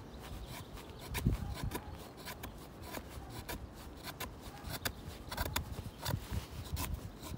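Bahco 2444 knife with a Scandi-ground blade shaving curls off a wet stick to make a feather stick: a string of short, irregular scraping cuts.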